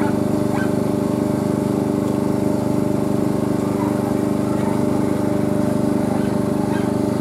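A small engine running steadily, a constant drone that holds one pitch throughout.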